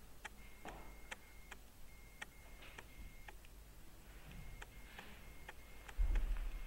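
Faint, steady ticking, a little over two ticks a second, with a low thump near the end.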